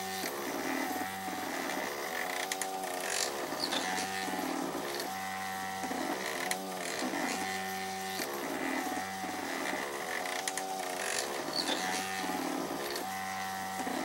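3D printer's stepper motors whining in steady tones that shift in pitch and switch every fraction of a second while it prints a cylindrical part. The pattern of tones repeats every two to three seconds.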